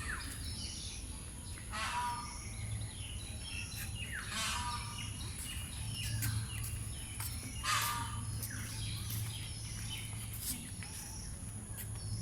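Peacock calling: three loud calls a few seconds apart, each falling in pitch, with fainter bird chirps between them.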